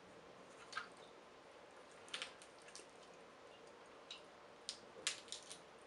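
Faint eating sounds at a table: scattered sharp snaps and clicks of snow crab leg shell being pulled apart, with wet squishing and chewing. The clicks come in a small cluster near the end.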